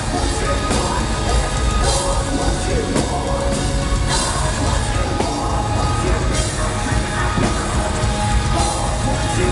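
Live heavy metal band playing loud and without a break: distorted electric guitars over bass and drums.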